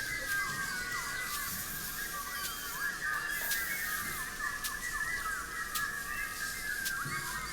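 A dense chorus of bird-like chirps and calls, many overlapping short pitch glides, with scattered sharp clicks.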